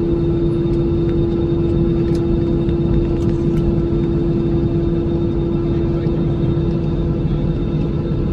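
An engine running steadily, with a constant humming tone over a deep rumble.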